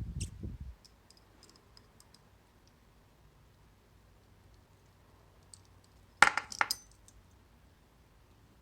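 Small metal lock parts and tools clinking and clicking as a Mul-T-Lock cam lock is being taken apart: a dull knock at the start, faint scattered ticks, then a loud cluster of sharp clinks a little after six seconds in.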